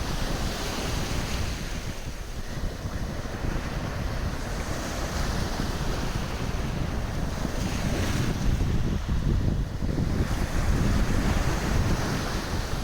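Mediterranean Sea waves washing onto the shore, the hiss swelling and falling every few seconds, with wind rumbling on the microphone.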